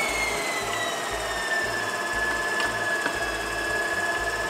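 Mito MX700 electric stand mixer running, its motor whine sliding down in pitch over the first couple of seconds and then holding steady as it beats cookie dough.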